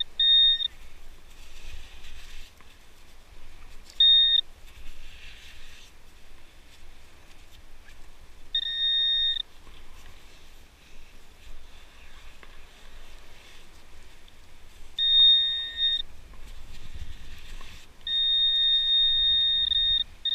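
Metal detecting pinpointer sounding its steady high alert tone in several stretches, short ones and then a longer one near the end, as it is worked close to a buried copper coin in the wet sand. Soft scraping of sand between the tones.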